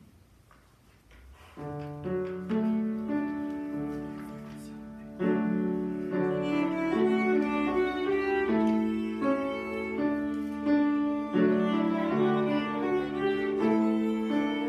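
Violin playing a slow melody with piano accompaniment, starting softly about a second and a half in and growing fuller about five seconds in.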